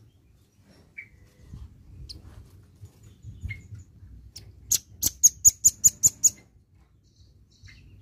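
Velvet-fronted nuthatch calling: a few scattered short chirps, then, about midway, a rapid run of about eight sharp, high chips, the loudest part.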